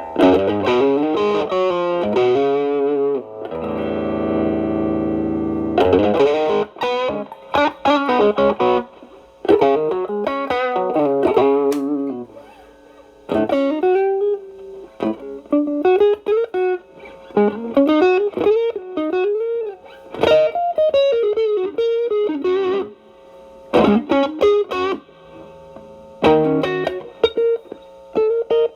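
Stratocaster electric guitar played through an Xotic BB Plus overdrive preamp into a Marshall Valvestate amp: an overdriven blues lead with string bends and vibrato. A chord rings for about two seconds near the start, and there are short pauses between phrases.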